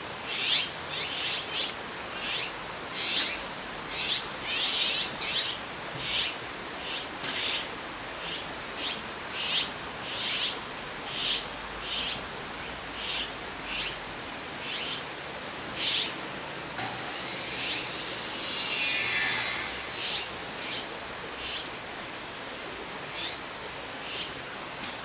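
Azure-winged magpie fledglings giving short, high, raspy begging calls, about one to two a second, as they wait to be fed. About three-quarters of the way through comes one longer, louder, harsher sound that falls in pitch, and the calls thin out after it.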